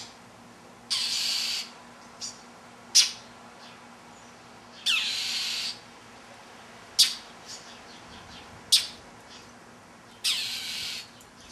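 Northern mockingbird scolding a stalking cat: short sharp chack calls alternating with three longer harsh, raspy calls, about one call every second or two.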